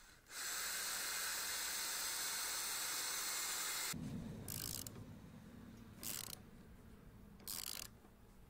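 Ryobi cordless drill running steadily for about three and a half seconds, driving a screw through a steel post base into a 12-by-12 timber post, then stopping. A hand socket ratchet then clicks in three short bursts about a second and a half apart, tightening a bolt in the bracket.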